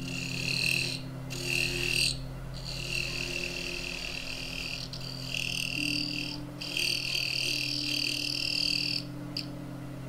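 Wood lathe running with a steady low hum while a thin parting tool cuts into a spinning wooden tenon, giving about five high, buzzing cutting passes of a second or two each with short pauses between. The cutting stops about a second before the end, and the lathe hum carries on.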